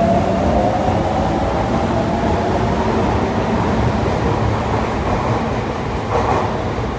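Sotetsu electric commuter train pulling out of the station: a rumble of wheels on rail with a faint motor whine that rises slightly in pitch and then fades as the last car passes. A brief louder sound comes near the end.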